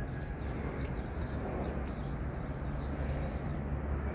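Steady low rumble under outdoor background noise, with a few faint clicks.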